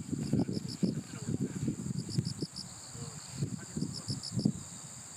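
Crickets chirping in short, evenly pulsed trains that repeat every second or so, over a steady high insect trill. Beneath them, louder irregular low rustling and thumps ease off near the end.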